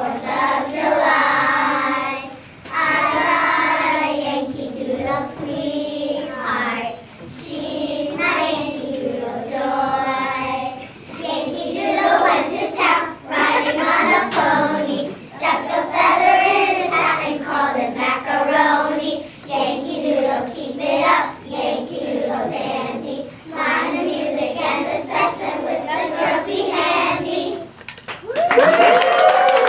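A group of young children singing a song together. The song ends about 28 seconds in and the audience breaks into applause.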